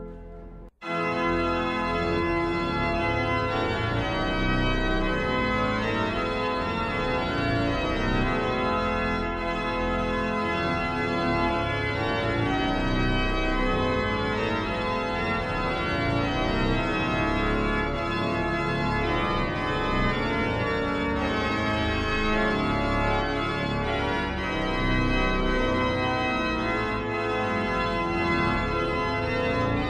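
Organ playing a slow hymn tune in sustained chords, with a brief break about a second in before the music resumes.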